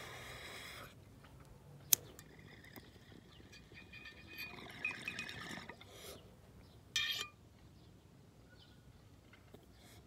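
Water bubbling in a glass beaker bong as a hit is drawn through it, faint and gurgling. One sharp click comes about two seconds in, and a short hiss about seven seconds in.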